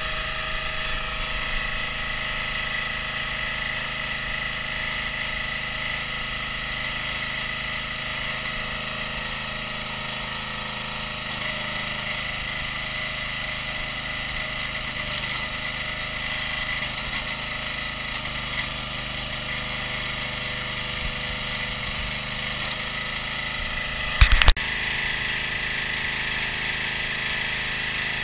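Single-cylinder Briggs & Stratton 6.5 hp petrol engine of a hydraulic log splitter running steadily, with one sharp, loud crack a little over two thirds of the way through.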